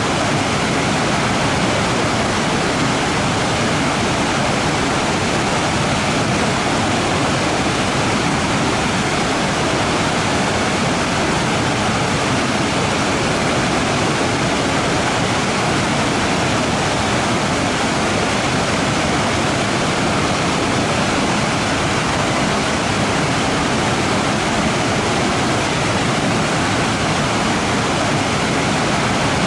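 Waterfall rushing with a steady, dense hiss that doesn't change.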